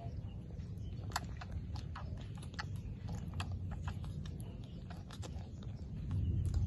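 Baby monkey suckling milk from a small feeding bottle: irregular small wet clicks and smacks from the teat, over a low steady rumble.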